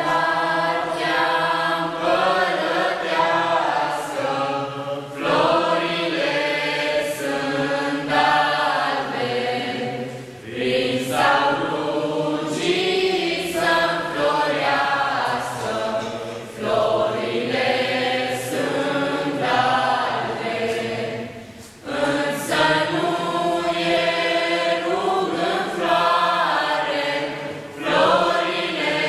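A small mixed group of young voices singing a Romanian Christmas carol (colind) together, in long phrases with brief breaks for breath about every five or six seconds.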